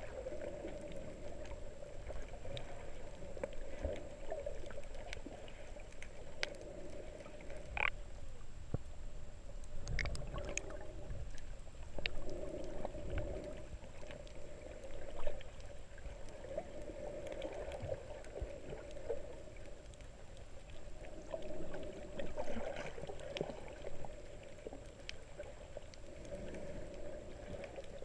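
Muffled underwater sound picked up by a camera in a waterproof housing: an uneven burble of moving water, with scattered sharp clicks and a faint steady high whine.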